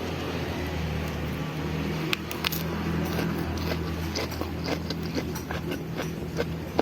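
A run of small, sharp clicks and clinks starting about two seconds in, over a steady low hum.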